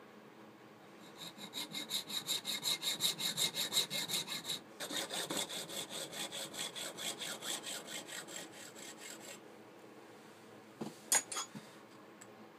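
A small hacksaw cutting through deer antler, in quick, even back-and-forth strokes of about four a second. The sawing breaks off briefly partway through and stops about nine seconds in. A few sharp clicks follow near the end.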